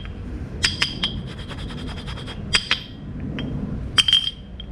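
Metal brake pads clinking against each other as they are handled: a few sharp clinks, each with a brief high ring, and a run of small ticks.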